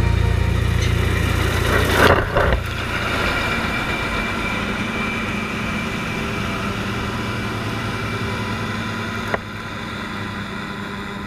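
Farm harvest machinery's engine running steadily, with a short loud rush about two seconds in and a single sharp click near the end.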